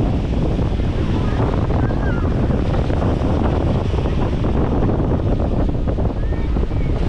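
Strong wind buffeting the microphone over the steady wash of surf breaking on a sandy beach.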